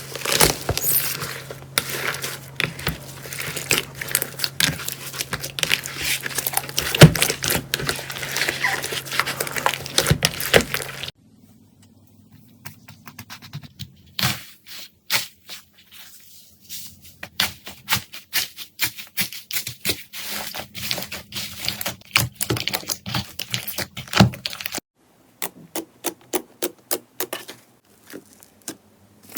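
Slime being squeezed and pressed by hand, giving rapid, irregular crackling clicks and pops of trapped air. It comes in three short clips with abrupt cuts between them, the middle one quieter to begin with.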